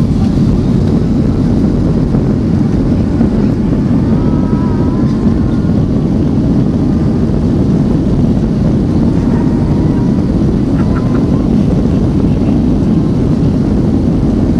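Jet airliner heard from inside the cabin as it rolls along the runway for takeoff: a loud, steady, deep rumble of the engines and the wheels on the runway.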